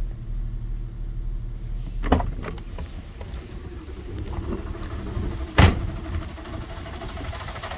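Porsche Cayenne 3.2-litre V6 petrol engine idling just after starting, not running properly: a misfire that the owner thinks may come from a vacuum leak. Two sharp knocks cut through it, about two seconds in and again about five and a half seconds in, the second the loudest.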